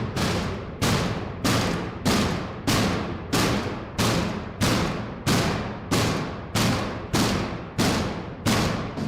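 Inmates in solitary confinement pounding on their cells in a steady drumming rhythm, about one and a half heavy strikes a second, each one echoing off concrete and metal.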